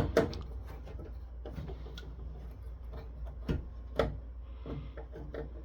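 Scattered sharp clicks and knocks of hand tools working a heatsink loose from a network switch's circuit board, loudest at the start and again about four seconds in.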